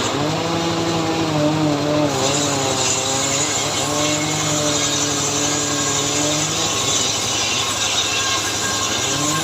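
Two-stroke chainsaw running at high revs while cutting wood. Its engine pitch sags and recovers as the chain loads up in the cut. A bright hiss of cutting joins about two seconds in.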